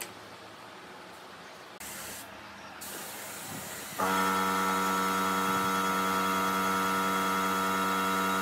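Low background noise, then about four seconds in a compressed-air spray gun starts spraying onto the wooden chair: a loud, steady hiss with a steady droning tone running under it.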